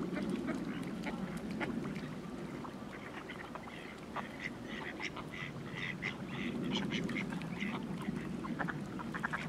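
Mallard ducks calling in a run of short quacks and chatter, thickest through the middle and again near the end, over a steady low background noise.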